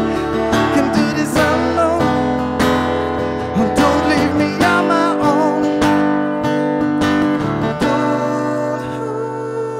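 Acoustic guitar strummed steadily in an instrumental passage of a song, with a wavering sustained melody line over it for the first half.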